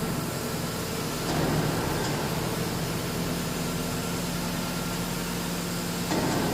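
SHD218 wood chipper running steadily with its engine's constant hum. A louder, rougher burst comes about a second and a half in and another just before the end.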